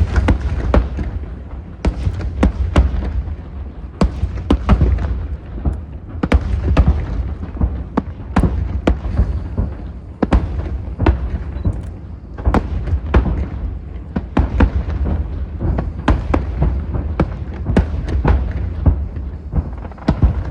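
Fireworks display: a dense run of sharp bangs and cracks, several a second, over a continuous low rumble of booming shells.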